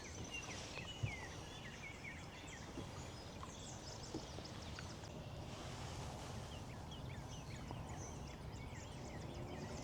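Many small birds chirping and calling faintly over a steady outdoor background hiss, with a small click about a second in.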